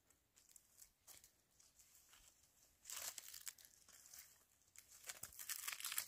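Faint rustling and crackling scrapes of a braided rope being handled and dragged across dry, stony ground, louder about three seconds in and again near the end.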